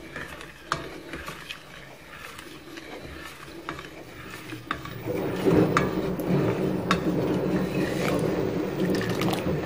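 A spoon stirring cane sugar into hot water in a metal pot to dissolve it for syrup. Scattered clicks of the spoon against the pot come first; about five seconds in the stirring turns into a louder, steady scraping swish.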